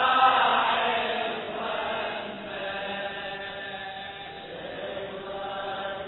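Voices chanting a Shia latmiya mourning elegy in long drawn-out sung lines, swelling louder at the start and again about two seconds in.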